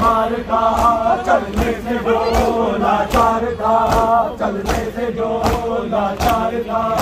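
Crowd of men chanting a Muharram mourning lament (noha) in a repeating sung phrase. Sharp slaps from chest-beating (matam) land in time with it, about every three-quarters of a second.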